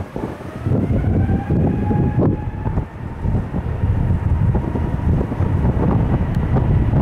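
Jet airliner engines: a heavy rumble with a whine that rises slowly in pitch, and wind buffeting the microphone.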